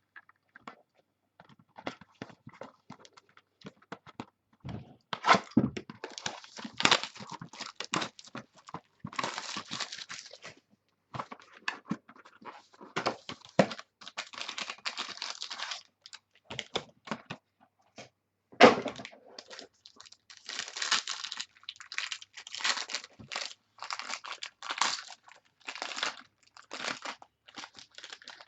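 Trading card pack wrappers being torn open and crinkled, with irregular crackling and clicks of cards and packaging being handled, and a few louder knocks.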